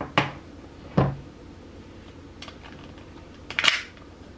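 Handling noise: a few sharp knocks and clicks, two single knocks in the first second and a louder cluster of clicks near the end.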